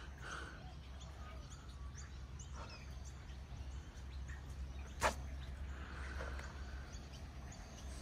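Outdoor riverside ambience: a steady low rumble with faint, scattered bird chirps, and one sharp tap about five seconds in.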